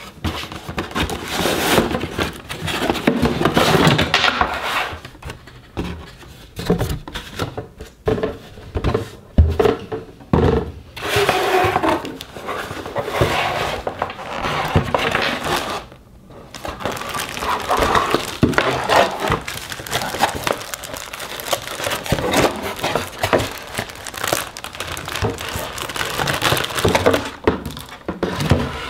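Cardboard packaging inserts scraping and a clear plastic (polyethylene) bag crinkling as a lamp is lifted out of its box and handled: irregular rustling with small knocks.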